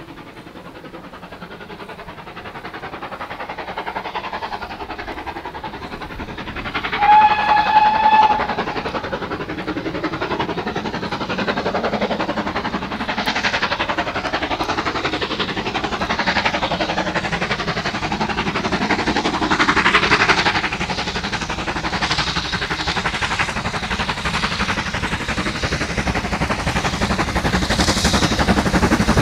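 Steam locomotive hauling a train and drawing closer, its running noise growing louder, with one short steam whistle blast about seven seconds in.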